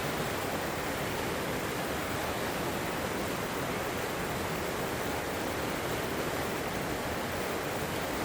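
River water flowing steadily over rocks: an even, unbroken rush.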